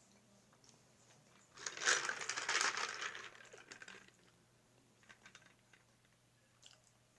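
A burst of crinkling and rustling, about two and a half seconds long, starting a little under two seconds in, with faint scattered mouth clicks of eating around it.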